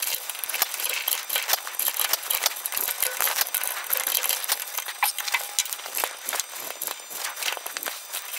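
Hand-held steel blade scraping and paring wood from a drilled-out recess in a board: a dense run of small scratchy scrapes and clicks.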